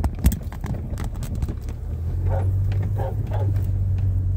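Car moving slowly, heard from inside the cabin: a steady low engine and road hum, with scattered clicks and crunches from the tyres on gravel. A single sharp knock comes just after the start.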